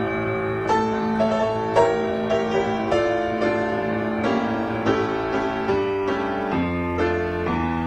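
Piano music accompanying a silent film: notes struck about twice a second over held chords, with a deeper bass note coming in near the end.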